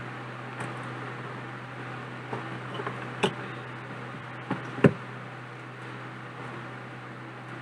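A few small sharp clicks and taps from handling the earphone parts and tools, the loudest about five seconds in, over a steady background hum and hiss.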